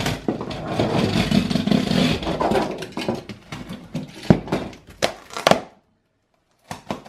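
Yellow utility knife slitting the packing tape on a cardboard box, with tape and cardboard scraping, then a few sharp knocks as the knife is set down on the table. The sound cuts out abruptly for about a second near the end.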